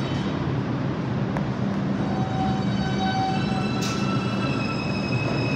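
New York City Subway 2 train running at the station, a steady noise of wheels and motors. A thin, high steady tone comes in about four and a half seconds in.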